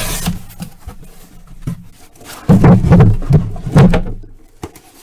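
A sealed cardboard card case being opened and handled. There is a short rasp at the start, scattered clicks, and a loud run of rustling knocks between about two and a half and four seconds in.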